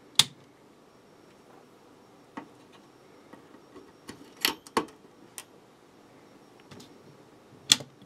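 Handling clicks: about half a dozen separate sharp plastic and metal clicks and clacks as the power supply's output lead is plugged back onto the switch board's small white connector and multimeter probes are set against it. The loudest clicks come just after the start and near the end.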